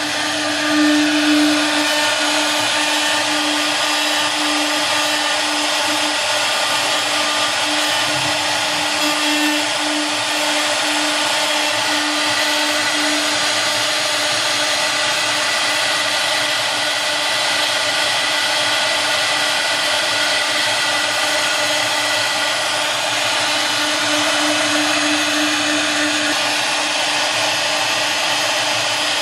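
AKM1325 woodworking CNC router running steadily: a spindle whine with a constant pitch over a loud hiss.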